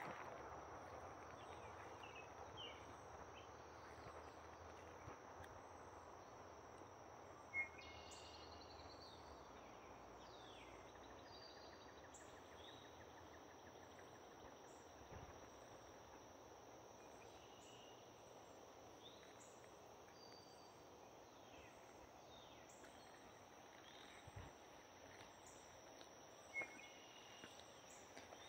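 Near silence: faint summer outdoor ambience with a steady high insect drone and a few faint bird chirps. There are two soft taps, about a quarter of the way in and near the end.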